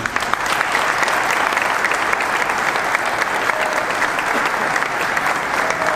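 Audience applauding, many hands clapping steadily, starting at once and keeping an even level throughout.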